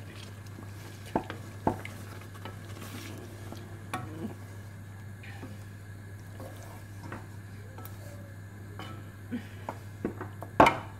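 A wooden spatula stirs and nudges koftas through thin curry gravy in a stainless steel pan. The spatula knocks against the pan now and then, loudest near the end, over a steady low hum.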